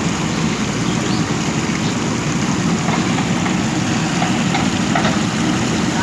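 JCB backhoe loader's diesel engine running steadily while the machine works the bucket along a freshly dug drain.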